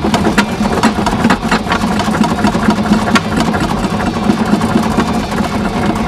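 A machine running with a steady low hum and a busy, irregular rattle of clicks over it.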